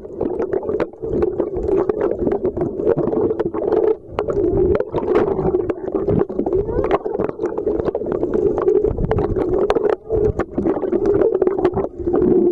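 Underwater sound picked up by a submerged camera: a steady muffled hum with many small clicks and crackles of water and bubbles.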